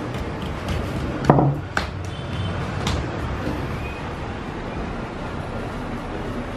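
Rolling pin knocking and tapping on the work table while dough sheets are rolled out: a few sharp wooden knocks in the first three seconds, the loudest a little over a second in, over a steady background hiss.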